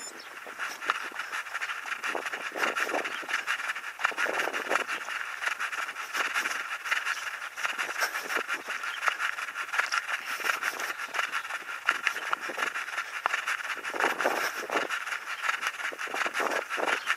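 A runner's footfalls on an asphalt road, picked up by a head-worn action camera that jostles with each stride, giving a constant rustling hiss and a quick, uneven run of thuds and knocks.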